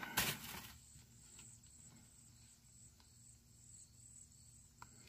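A brief rustle as a small cardboard card box is handled, then quiet with a faint, high, pulsing chirr of insects.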